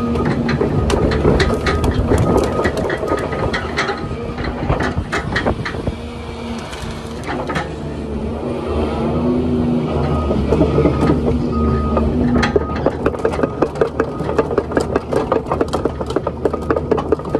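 30-tonne excavator's diesel engine and hydraulics working steadily while its hydraulic grab pushes into a pile of pine branches, with repeated cracking and snapping of wood. From about two thirds of the way through the crackle turns into a dense, rapid run of sharp snaps.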